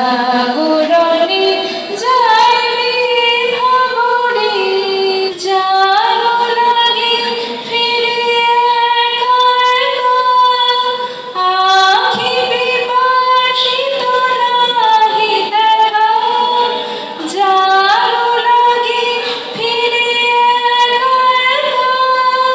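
A woman singing solo into a microphone. She holds long notes and slides from one pitch to the next, with short breaks for breath every few seconds.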